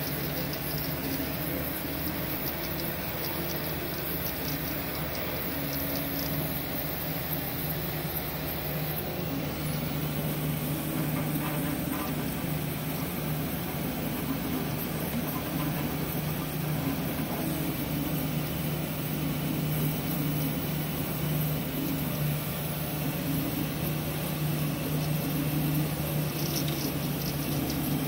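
MakerBot 3D printer printing: its stepper motors whir in short, changing tones as the print head travels back and forth, over a steady low hum.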